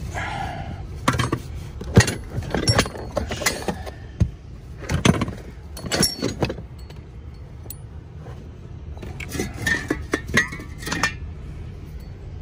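Large metal washers clinking against each other as they are handled and sorted, in scattered clinks that come thickest in the first half and again about ten seconds in, over a low steady rumble.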